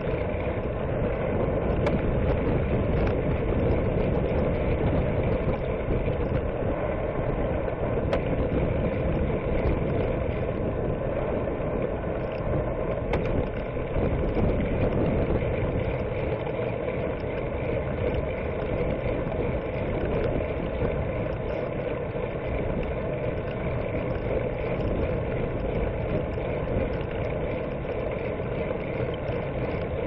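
Steady wind rumble on the microphone of a camera riding on a bicycle, mixed with tyre noise on the paved path, with a few faint ticks.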